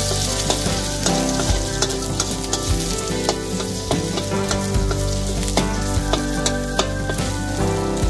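Eggs sizzling as they fry in a hot steel wok, with a metal spatula scraping and knocking against the wok at irregular moments as they are stirred and broken up. Music plays underneath.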